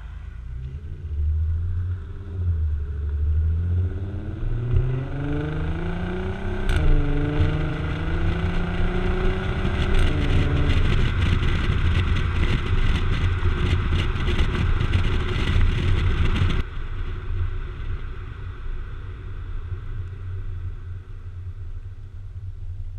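2012 Volkswagen Passat's 3.6-litre VR6 through Magnaflow mufflers, heard close at the tailpipe, accelerating hard: the exhaust note rises, drops at two gear shifts about 7 and 10 seconds in, and climbs again. About 16 seconds in the throttle is lifted and it falls off to a lower, steady cruise.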